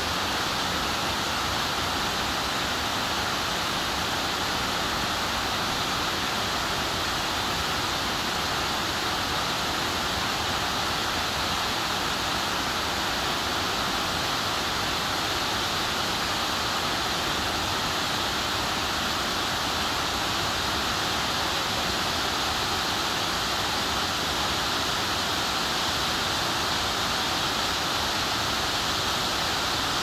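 Waterfall cascading down a rock face: a steady, unbroken rush of falling water.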